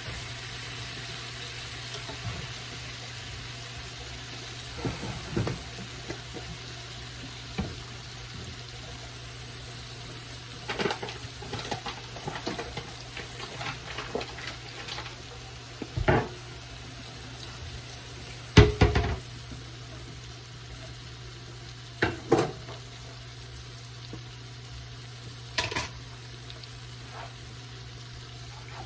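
Oyster mushrooms frying in a pan, a steady sizzle over a low hum, with scattered knocks and clinks of a utensil or the pan. The loudest knock comes about two-thirds of the way through.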